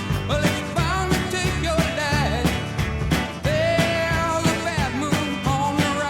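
Pop music with a steady beat and a sung melody line.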